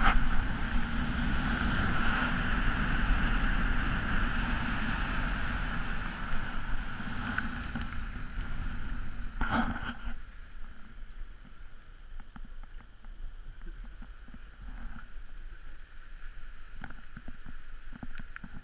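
Volvo car being driven hard on a snowy road: engine and tyre noise mixed with wind rushing over the microphone. About halfway through the noise drops away sharply, leaving a much quieter stretch with scattered light crackles.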